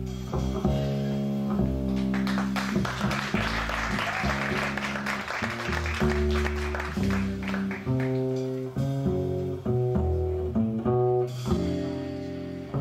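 Live jazz combo playing: electric guitar and plucked upright bass, with drum cymbals washing through the middle few seconds before thinning out.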